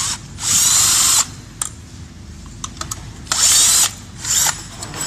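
Power drill with a hex bit running in short bursts, three main runs, backing out a bolt on an electric scooter's folding and stand assembly. There are small clicks between the runs.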